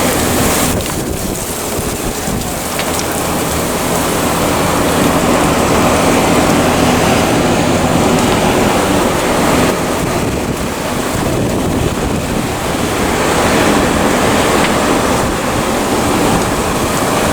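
Loud, steady rushing street noise with a low engine hum underneath: city traffic.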